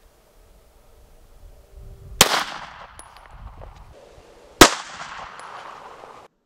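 Two 9mm Glock 17 pistol shots about two and a half seconds apart, the second the louder, each a sharp crack followed by an echo trailing off. A third shot begins right at the end.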